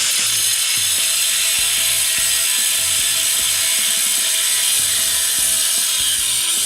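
Power cutting tool cutting through a stuck metal exhaust clamp: a loud, steady high hiss with a constant whine.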